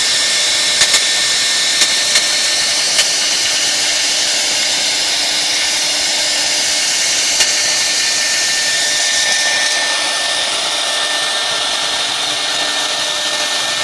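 CNC router spindle running at high speed while its bit carves a relief into a wooden board: a steady rushing cutting noise with a faint high whine. Several sharp ticks come in the first few seconds and one more about halfway through, and the sound eases slightly near the end.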